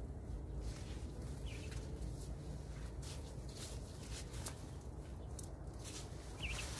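Faint outdoor background with a low steady rumble, and a bird chirping briefly about a second and a half in and again near the end.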